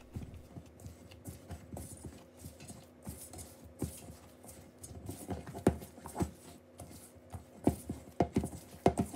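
Pizza dough being worked by hand in a mixing bowl: irregular soft thumps, about one or two a second, as the sticky dough is pressed and folded against the bowl.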